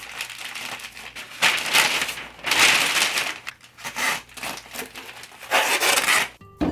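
Newspaper being scrunched into a ball and masking tape pulled off its roll and wrapped around it: several loud crackling bursts of paper and tape.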